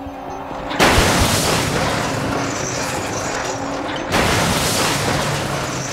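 Steel shipping container dropped from a crane crashing into the ground: a heavy impact about a second in with a long rumbling decay, then a second crash about four seconds in.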